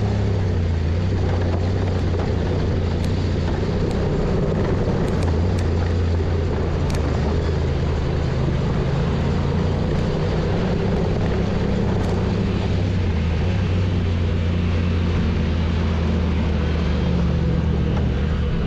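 Side-by-side UTV engine running at a steady pace along a dirt trail, heard from on board: an even, unchanging drone with the rush of the trail underneath.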